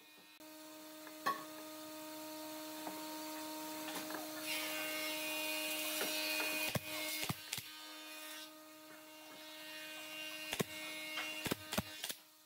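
Wooden boards knocked and set into place, with a quick cluster of sharp clicks near the end from a pneumatic nailer firing into the wood, over a steady electric hum.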